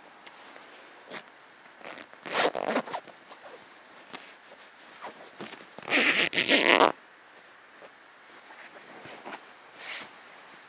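Zipper on an armchair's fabric seat-cushion cover being pulled open: a short zip about two seconds in, then a longer, louder one about six seconds in, with light fabric rustling between.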